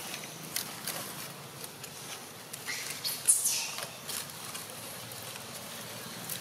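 Dry leaf litter crackling in scattered light clicks as macaques move over it, with one short high-pitched chirp about three seconds in.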